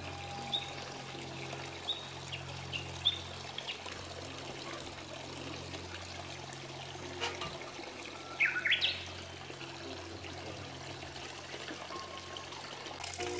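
Water running and trickling steadily, with short high bird chirps about once a second early on and a louder burst of quick rising bird calls about eight seconds in.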